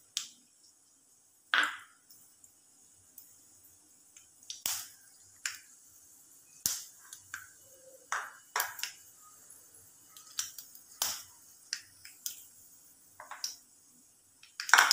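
Mustard seeds popping in hot oil in an aluminium kadai: irregular sharp pops, a few at first and coming more often near the end, as the seeds splutter during the tempering.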